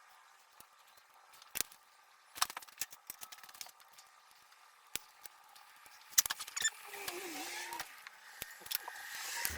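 Scattered light clicks and small metallic clatters of hand tools and hose clamps being handled while fuel hoses are fitted, with a short wavering squeak about seven seconds in.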